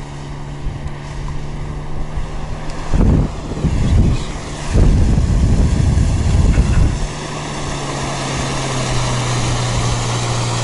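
Small outboard motor on an inflatable boat running at a steady low hum. About three seconds in, several seconds of loud low rumbling noise cover it, then the steady hum returns.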